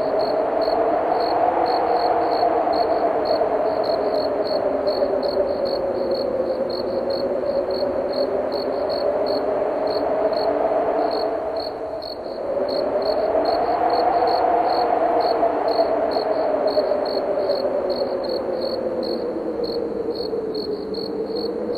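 Crickets chirping in a steady, evenly spaced rhythm over wind howling that slowly rises and falls in pitch, the wind dropping away briefly about halfway through before swelling again.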